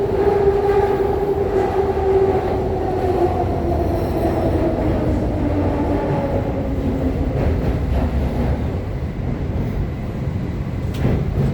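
Guangzhou Metro Line 5 train heard from inside the car as it brakes into a station. Its motor whine falls steadily in pitch over the low rumble of the running gear, and there is a sharp knock near the end.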